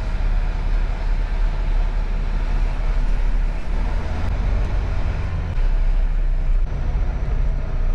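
Semi-truck tractor running bobtail, its diesel engine giving a steady low rumble with road and cab noise, heard from inside the cab.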